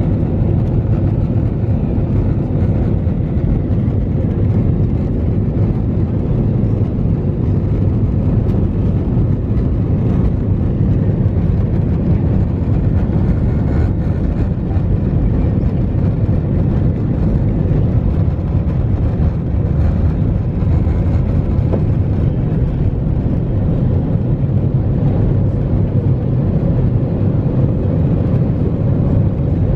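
Airbus A320's jet engines at takeoff thrust, heard from inside the cabin as a loud, steady, low rumble through the takeoff roll and liftoff.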